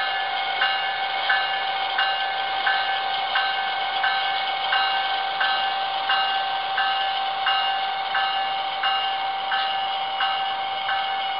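Sound-equipped HO-scale Siemens Charger SC-44 model locomotive playing diesel sounds through its small onboard speaker as it pulls its train: a steady engine drone with a bell ringing about three strikes every two seconds.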